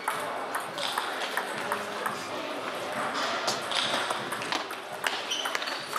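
Table tennis balls clicking off bats and tables in quick, irregular rallies, with a background murmur of voices.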